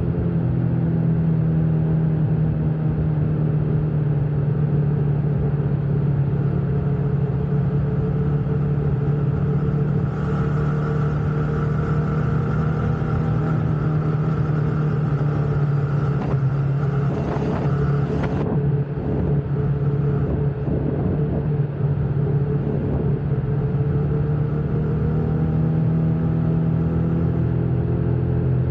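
Motorcycle engine running steadily while riding, easing off a little past the middle and picking up again near the end. A higher whine with a hiss joins for several seconds in the middle.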